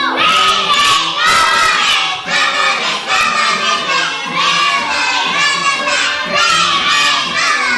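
A group of young children singing loudly together.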